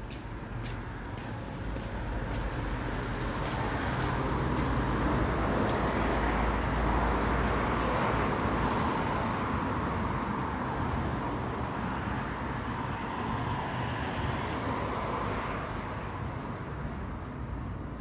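Road traffic noise: a steady rush of passing vehicles with a low rumble, swelling to its loudest about halfway through and then easing. A few light clicks in the first few seconds.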